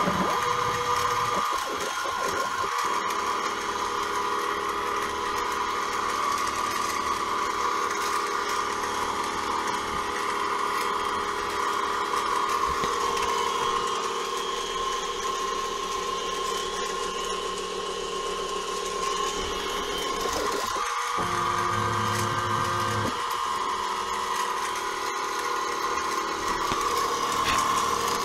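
CNC mini mill running a center-drilling program: the spindle motor whines steadily while the axes step through their moves. About 21 seconds in, a lower-pitched whir from the stepper motors lasts about two seconds as the table makes a longer move.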